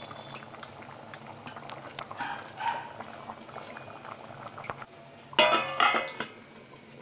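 Vegetable curry simmering and bubbling in a stainless-steel pot, with small scattered clicks. About five and a half seconds in, a steel lid clanks twice against the pot with a short metallic ring.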